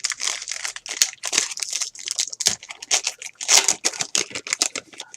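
Foil wrapper of a trading-card pack crinkling as it is torn open and handled, in a rapid irregular series of rustles.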